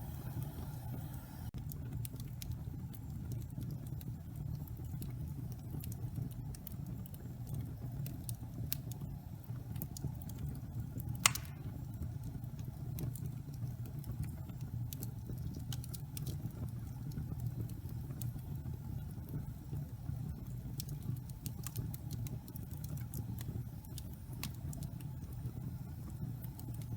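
Wood fire burning in a fireplace: a steady low rumble of flames with frequent small crackles and one loud pop about eleven seconds in.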